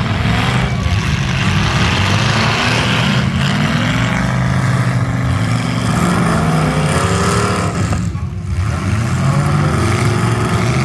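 Several demolition derby cars' engines running and revving hard, their pitch rising and falling over one another, with a brief lull about eight seconds in.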